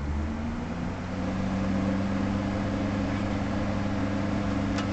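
Cooling fans in an Antec 300 PC case running with a steady hum that gets a little louder about a second in.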